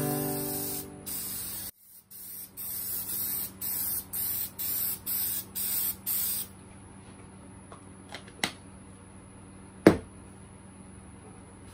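Aerosol can of Minwax water-based Polycrylic spraying a clear coat in about ten short hissing bursts, stopping after about six seconds. Then two sharp knocks, the second and louder near the end, as the can is set down on the wooden workbench.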